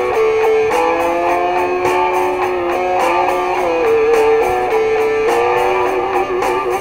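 Instrumental break of a guitar song: steadily strummed guitar under a lead line of long held notes that slide gently between pitches.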